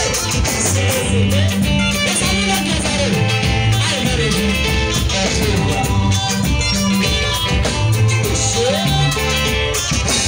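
A live band playing a dance tune on drum kit, electric guitar and keyboard over a steady bass line, with a few sliding guitar notes.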